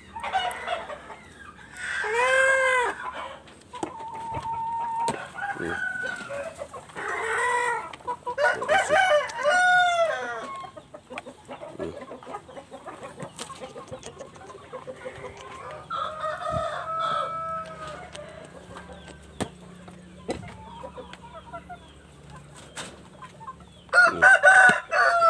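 Chickens clucking and crowing, several separate calls, a few seconds apart, with quieter stretches between.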